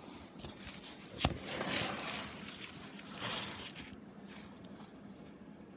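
A comic book being handled and repositioned: a sharp tap about a second in, then rustling for about three seconds that fades out.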